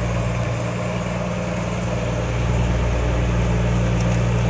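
A fishing boat's engine running steadily with a low, even hum.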